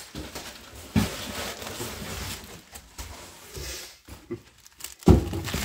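Bubble wrap and cardboard rustling and crinkling as a bubble-wrapped enclosure is lifted out of a cardboard box, with a knock about a second in and a louder thump near the end.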